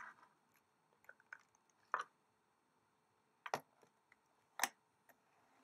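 A few faint, separate taps and scrapes of cardboard jigsaw puzzle sections being lifted out of a cardboard box and set down on a wooden table.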